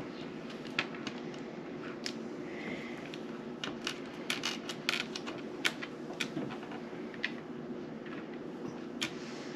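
Scattered light clicks and taps of board-game pieces and cards being handled on a table, over a steady low hum.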